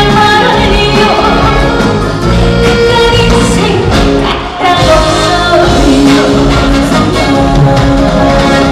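A trot song performed live: a woman sings held, sliding melody lines over full band accompaniment with a steady beat.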